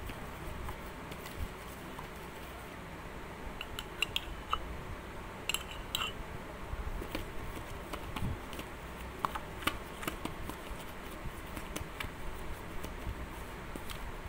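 A spoon stirring crumbly flour dough in a plastic bowl, giving scattered small clicks and scrapes against the bowl over a steady hiss.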